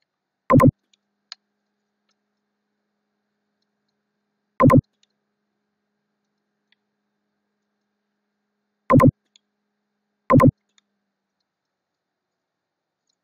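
Computer mouse clicks: four short, loud clicks at uneven gaps, the last two about a second and a half apart, with a faint tick shortly after the first.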